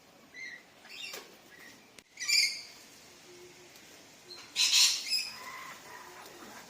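Birds giving short, sharp calls a few times over, the loudest a harsh, shrill squawk about two-thirds of the way through.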